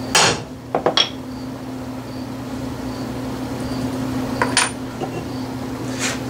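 A single blow of a brass hammer on a steel number punch, stamping a numeral into a lathe dial, followed by light ringing metallic clinks as the punch and jig are handled, about a second in and again near the end. A steady low hum runs underneath.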